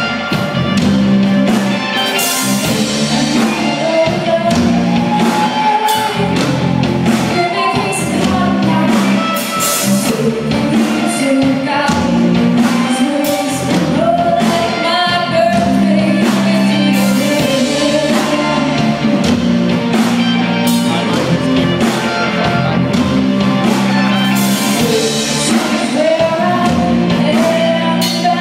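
Live rock band playing: a woman singing lead over distorted electric guitars, electric bass and a drum kit.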